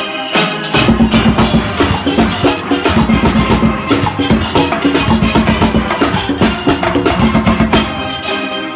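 Steel band playing, heard from inside its engine room: a drum kit with cymbals keeps a fast, busy beat over the ringing steelpans. The low drums drop out for a moment at the start and again near the end.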